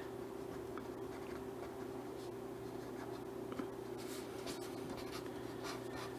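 Pen strokes scratching lightly on paper while drawing, over a steady low electrical hum.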